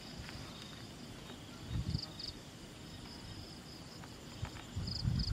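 Insects chirping steadily in a high, pulsing trill, with two low rustling bumps, about two seconds in and near the end.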